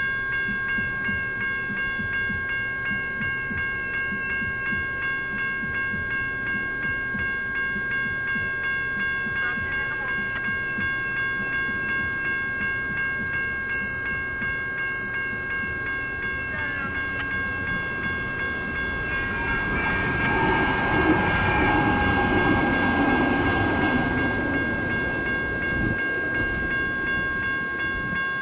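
Railroad crossing electronic bells (General Signals Type 1 and NEG electronic bells) ringing in a steady rapid pulse throughout the activation. About two-thirds of the way through, a Sacramento Regional Transit light rail train passes: the rumble and wheel noise swell to the loudest point, then fade while the bells keep ringing.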